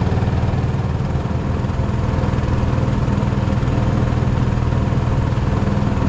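MudSkipper mud motor on a small jon boat running steadily under way.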